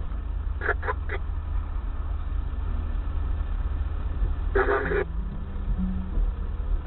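Car horn: three quick toots about a second in, then one longer honk at about four and a half seconds, over the steady low rumble of road and engine noise inside a car's cabin.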